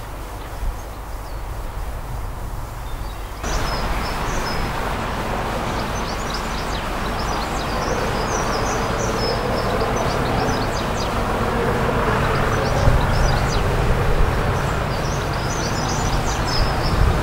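Small birds chirping and singing over a low wind rumble on the microphone, the birdsong starting about three seconds in. Under it, the English Electric V12 diesel of Class 37 locomotive 37324 builds slowly as the train approaches.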